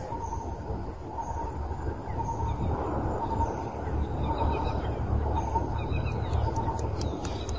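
Birds calling outdoors: a short note repeated about twice a second, with faint higher chirps, over a steady low rumble.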